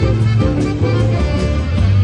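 Live jazz combo playing swing: saxophone and electric guitars over a drum kit, with a steady beat of cymbal and drum strokes.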